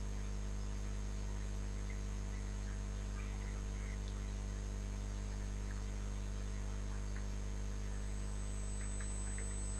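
Steady electrical mains hum in the recording, a low buzz of evenly stacked tones that does not change, with a few very faint clicks.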